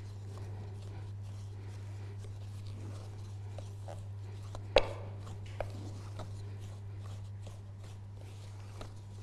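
Wooden spoon stirring and scraping flour into a crumbly shortbread dough in a glass bowl: soft scrapes and light ticks, with one sharper knock about five seconds in. A steady low hum runs underneath.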